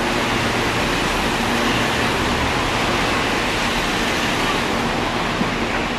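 Hakone Tozan Railway Moha 1/Moha 2 electric train running away up the line after departing, heard as a steady rushing noise with no clear rhythm.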